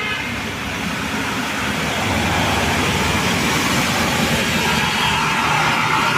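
Tour bus passing close by: diesel engine and tyre noise, loud and steady, a little louder from about two seconds in.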